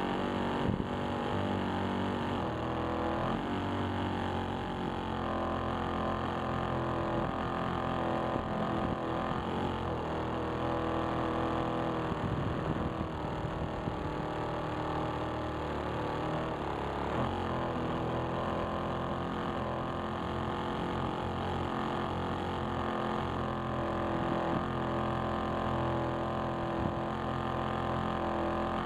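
Propeller-driven RC plane's motor and propeller running steadily, close to the camera, with a droning tone whose pitch shifts a few times as the throttle changes, over rushing air.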